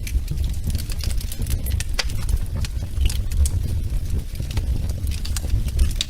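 Wood fire burning in a fireplace: irregular sharp crackles and pops over a steady low rumble of flames.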